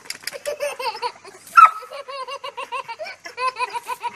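Toddler laughing in quick, repeated ha-ha-ha bursts, with one loud, sharp cry about a second and a half in.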